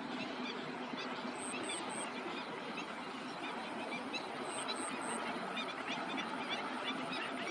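A flock of birds calling together: a dense chatter of many short chirps and squawks, with a high triple pip repeating every few seconds.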